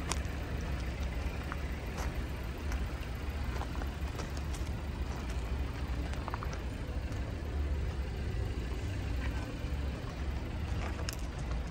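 Outdoor background noise: a steady low rumble with a few faint scattered ticks.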